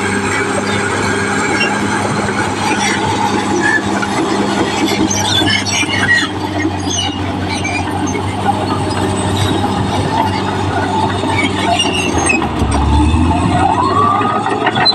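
Caterpillar D6R XL bulldozer working, its diesel engine running steadily under many short, high squeals from the steel crawler tracks. Near the end a tone rises and then holds.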